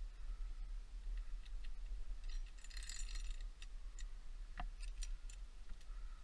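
Scattered light clicks and a brief metallic jingle about halfway through, like small metal gear clinking, over a low rumble.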